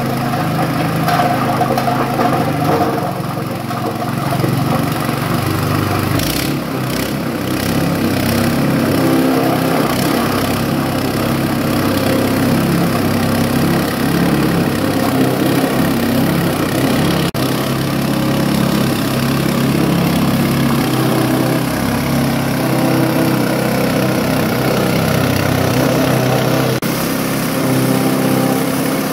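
Galangal and lemongrass chopping machine running steadily as galangal rhizomes are fed into its hopper and chopped.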